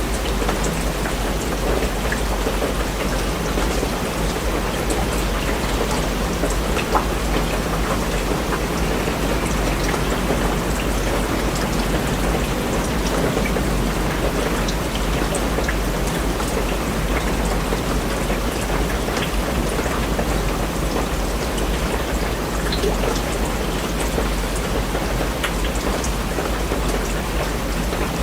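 Steady rain falling, many individual drops heard as small sharp taps, over a constant low rumble.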